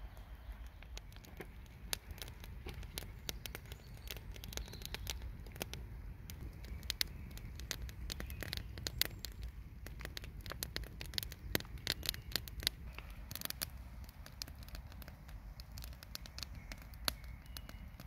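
Wood campfire crackling, with many irregular sharp pops.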